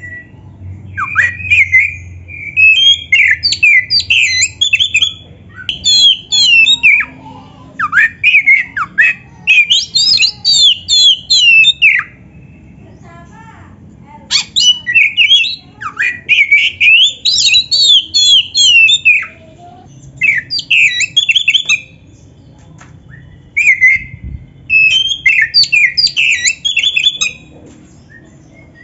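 Black-breasted oriental magpie-robin (kacer) singing its loud, varied song: about five bouts of rapid, sweeping high notes, each two to six seconds long, with short pauses between them.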